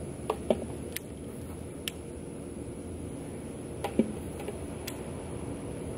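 Scattered light clicks and a few sharper knocks from a baitcasting rod and reel being worked while a lure is flipped at targets. The loudest knocks come about half a second in and about four seconds in, over a steady low background noise.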